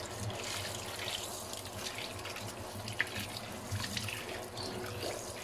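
Tap water running over a clarinet's body joint and splashing into a stainless steel sink as the joint is rinsed, with a few light clicks.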